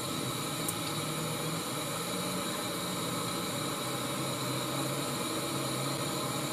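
Gas canister stove burning steadily, its flame giving an even hiss, with a faint low hum underneath.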